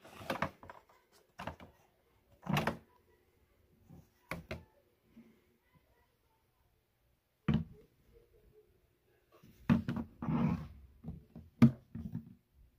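Hollow plastic clunks and clicks, spaced a second or more apart, as the clear water tank of a Bissell SpotClean Pro carpet extractor is lifted out of its bay and handled, with a short spell of plastic rubbing near the end.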